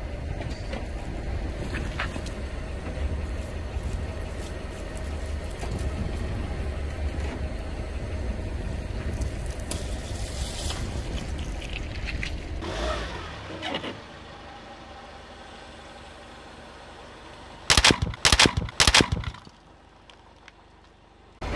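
Car engine idling with a low steady rumble while a tyre rolls slowly over plastic bags of water beads, squashing and bursting them. After a cut, several sharp, loud snaps come close together over about a second and a half, then it goes quiet.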